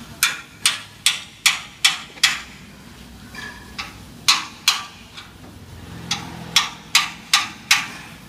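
Hammer blows struck in quick, even runs of about two and a half a second: a run of six at the start, a few in the middle and five near the end.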